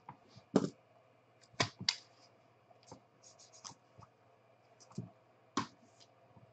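Hands handling trading cards in hard plastic holders on a table: scattered sharp clicks and taps, with a quick run of light ticks in the middle.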